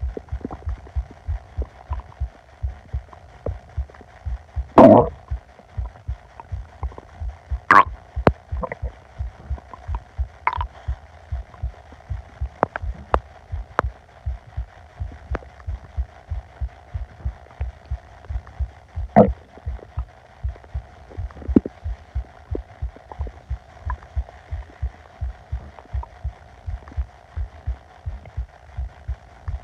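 Upset stomach and bowels heard close up through the belly: a steady low thumping pulse, a little over two thumps a second, with a few short gurgles, the loudest about five seconds in and others near eight, ten and nineteen seconds.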